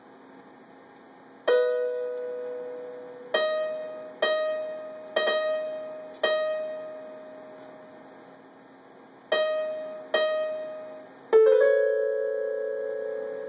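Electronic keyboard in a piano voice, sounding single notes as a cat's paw presses the keys: about eight notes at uneven gaps, each struck sharply and ringing out as it fades. Near the end several keys go down together in a jangling cluster that rings on.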